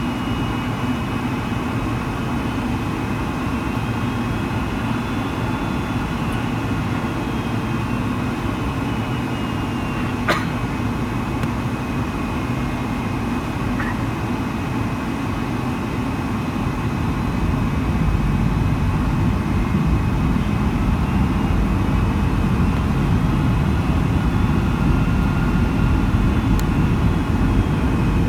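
Boeing 757-200 jet engine noise heard inside the cabin on approach: a steady roar with a thin high whine over it. The low part of the roar grows louder from a little past the middle. One sharp click comes about ten seconds in.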